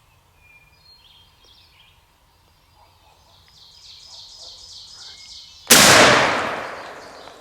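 Faint bird calls, then near the end a single turkey-hunting shotgun blast, its report dying away through the woods over about a second and a half.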